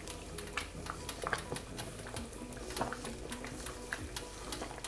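Wooden spatula stirring thick, hot seviyan (vermicelli cooked in milk) in a pan, with irregular small clicks from the spatula and the thick mixture. Quiet background music runs underneath.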